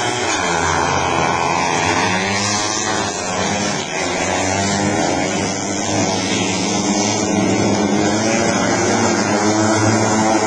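A pack of junior speedway motorcycles racing on a dirt oval. Several engines overlap, each rising and falling in pitch as the riders go through the straights and turns.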